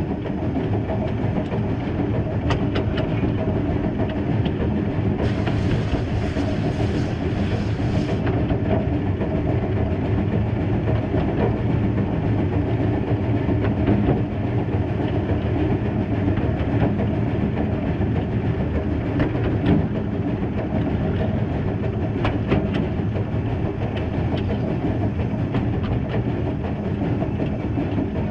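Small narrow-gauge 0-6-0 well tank steam locomotive running along the track: a steady rumble of wheels on rail with scattered clicks over the rail joints. A hiss rises above it for about three seconds, starting some five seconds in.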